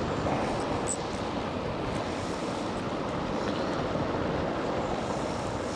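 Steady rush of wind buffeting the microphone over waves washing on the shore, with a few faint high ticks about a second in.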